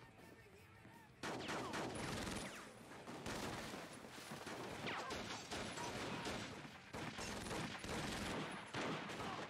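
Rapid gunfire from several guns breaks out about a second in and keeps going, the shots overlapping in a continuous volley.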